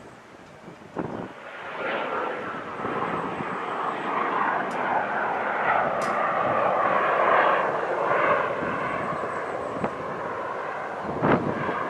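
Hawker Hunter's Rolls-Royce Avon turbojet roaring as the jet flies its display, swelling in loudness a second or two in, with its pitch sliding downward as it passes. A short sharp knock near the end.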